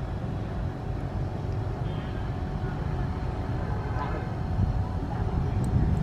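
Steady low outdoor rumble, with faint distant voices.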